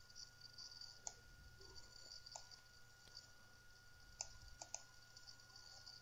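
Faint, sparse clicks of a computer mouse, about five, two of them in quick succession a little past the middle, over a faint steady high tone and hiss.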